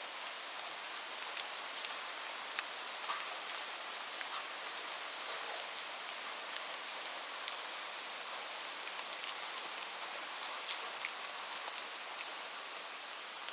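Steady rain falling, an even hiss with many distinct drop ticks scattered through it.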